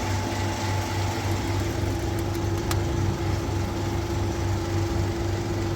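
Toyota Passo Moda's 1.0-litre three-cylinder engine idling steadily.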